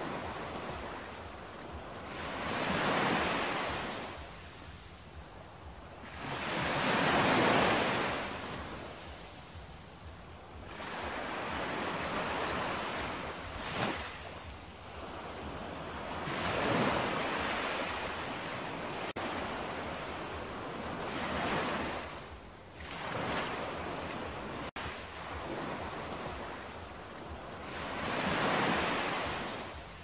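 Ocean surf: waves breaking and washing up the shore, swelling and fading about every four to five seconds.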